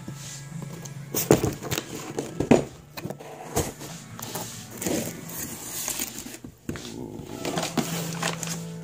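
Cardboard box and plastic wrap being handled while opening the package: irregular rustling and crinkling with sharp knocks and scrapes, loudest a little over a second in and again about two and a half seconds in. A faint steady low hum runs underneath.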